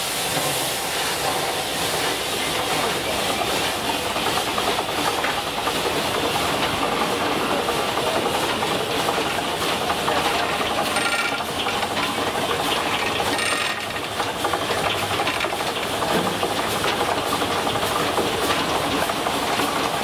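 Steam-powered sawmill running: a steady hiss of steam over the mechanical noise of the steam engine and the saw carriage.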